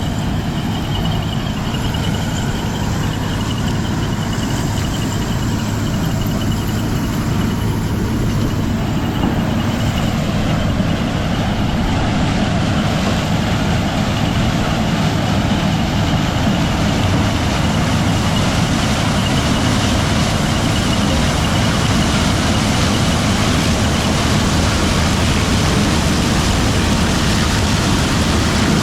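Diesel engine of heavy farm machinery running steadily at an even speed, a continuous low drone with a faint high whine over it.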